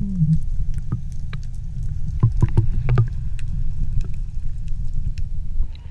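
Muffled underwater sound picked up by a camera held below the sea surface: a steady low rumble with scattered clicks and pops, and a short low falling tone at the start. It cuts off abruptly near the end.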